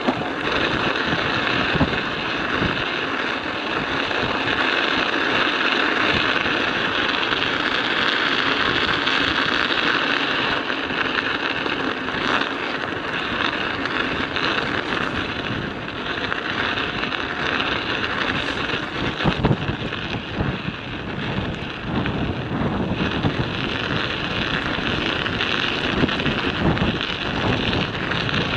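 Studded bicycle tyres rolling over ice and snow, the studs crunching and clattering in a steady stream of small clicks, with wind buffeting the microphone.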